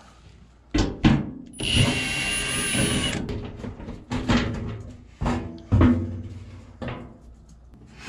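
Cordless drill/driver runs for about a second and a half, a steady whir with a whine in it, backing out a screw. Before and after it come several sharp knocks and clatters as the washing machine's sheet-metal back panel is handled and lifted off.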